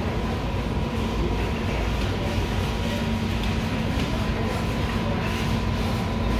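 Steady indoor shop ambience: a low rumble and hum with a faint steady high tone.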